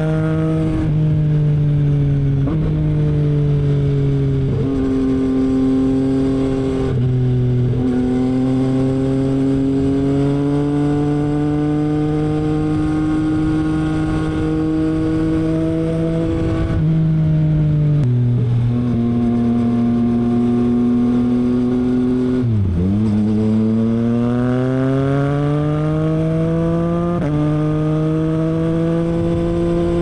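Yamaha MT-09's three-cylinder engine running through a Revoc SP carbon full exhaust system while riding at speed. The engine note holds or slowly rises, with several sudden steps in pitch, and about two-thirds through it dips sharply, then climbs steadily as the bike accelerates.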